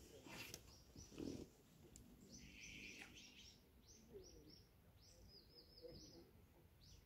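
Faint birdsong: a small bird giving short runs of quick, high chirps, repeated several times. A soft low bump about a second in.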